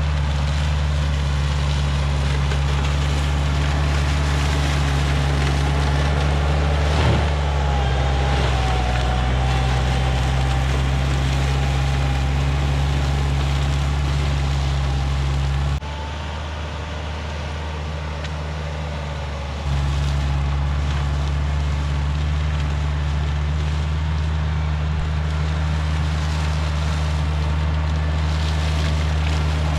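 A motor engine running steadily with a low hum. It drops back for about four seconds midway, then returns to the same level. A faint wavering high tone sounds for several seconds in the first half.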